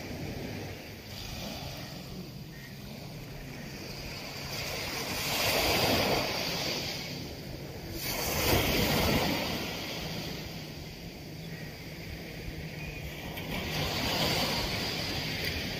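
Small sea waves breaking and washing up a sandy beach as a steady surf hiss. The sound swells three times as waves break, the loudest about halfway through.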